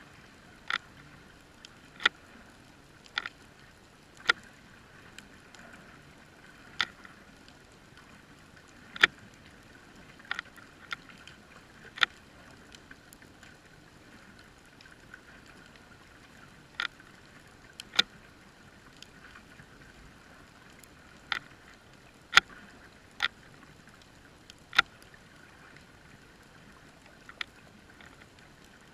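Underwater sound picked up through a GoPro's waterproof housing: sharp, irregular clicks, roughly one every second or two and some in quick pairs, over a faint steady hiss.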